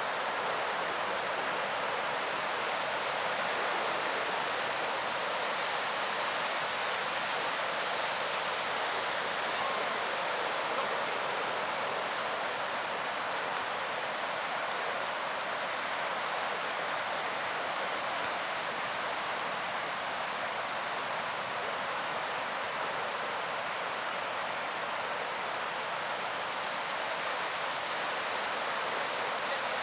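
Steady, unbroken rushing noise of the beach outdoors, an even wash like surf with no single sounds standing out.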